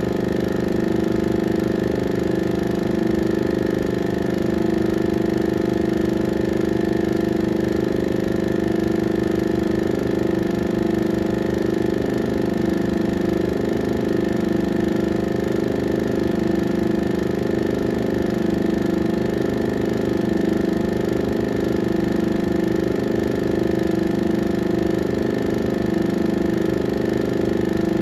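16mm film projector running: a steady mechanical whir with a fast, even flutter underneath, unchanging throughout.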